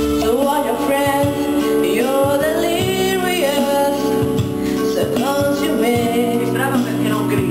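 A young woman singing a melodic line into a handheld microphone over steady instrumental accompaniment.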